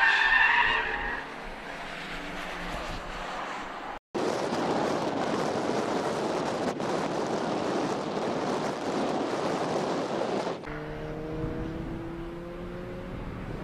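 A Mazda MX-5's tyres squeal as the car slides, fading out about a second in. After a brief dropout there is a steady rushing noise for several seconds. Near the end, car engines rise slowly in pitch as they accelerate.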